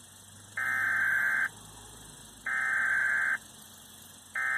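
Emergency Alert System SAME digital data bursts: three bursts, each just under a second long, about a second apart. Bursts of this length are the coded header that opens an alert.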